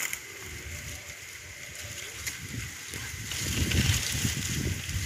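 Water swishing and sloshing as a cast net is dragged in by hand through shallow pond water, louder about three and a half seconds in.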